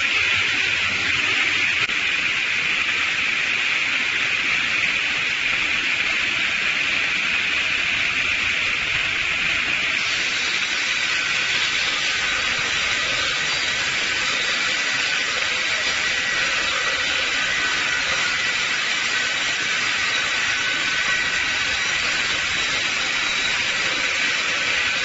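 Log multi-blade rip saw running, a steady hissing machine noise, with faint high whining tones joining in from about ten seconds in.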